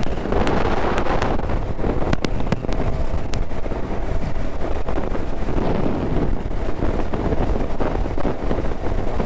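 Motorcycle riding at highway speed: steady wind rush buffeting the microphone over the engine's running, with a few light clicks.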